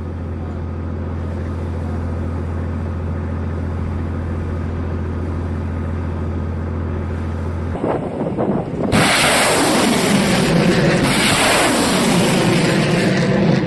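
A steady low hum, then about nine seconds in a BM-27 Uragan's rockets launching: a sudden loud rushing noise with sweeping, wavering tones as the rockets leave the truck-mounted launcher.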